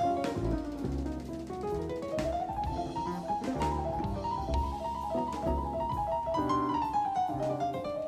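Live jazz band playing: a drum kit with bass drum under quick runs of keyboard melody that climb and fall in steps.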